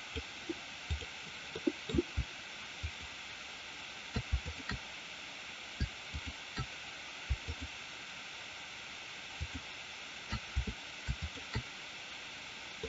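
Steady faint hiss with scattered soft, low clicks and knocks from a computer mouse being clicked and handled on a desk, irregular, several every second or two.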